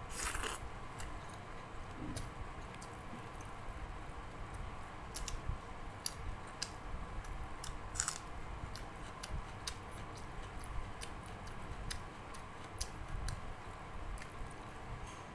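Eating by hand: chewing mouthfuls of rice and dal, with many short mouth clicks throughout and a louder smack about eight seconds in as food goes into the mouth.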